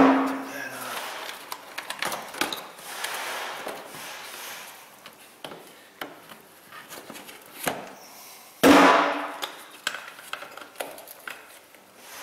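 Clicks, clatter and knocks of engine-bay parts being unclipped and handled by hand, with a louder knock at the very start and another about nine seconds in.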